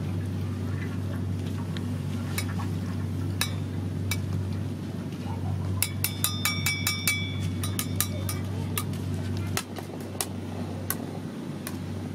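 Metal spatula tapping a stainless mesh strainer held over a wok, knocking oil from fried slices. It gives scattered clinks, then a quick run of ringing metal taps for about two seconds midway, over a steady low hum that drops away about two-thirds through.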